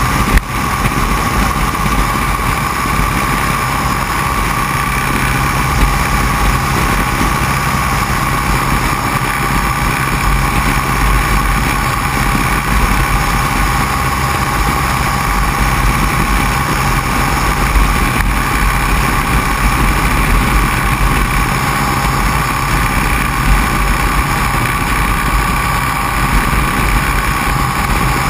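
Open-cockpit biplane in flight: a steady engine and propeller drone mixed with wind rushing over the aircraft, with one brief knock about half a second in.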